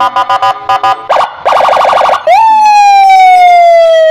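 Police car electronic siren cycling through its tones. It starts with rapid chopped two-tone pulses, about seven a second, then gives a short fast warble. About two seconds in, a long tone jumps up and slides slowly down.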